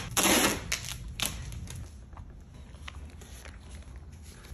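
Duct tape ripped off the roll in a short, loud rasp at the start, followed by a few light clicks and soft rustling as a tape-wrapped can is folded into a gel pack.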